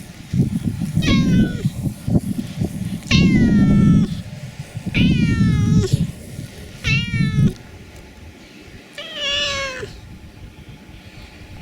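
Domestic cat meowing five times, about two seconds apart, each call falling in pitch, with a loud low rough rumble under the first four; the last meow is quieter.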